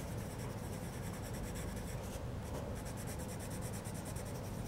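Coloured pencil shading and blending on watercolour-painted paper: a steady scratching of the pencil lead as it colours in.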